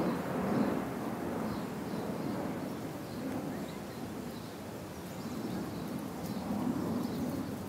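Outdoor ambience: a steady low rumble that swells and eases gently, with faint high chirps now and then.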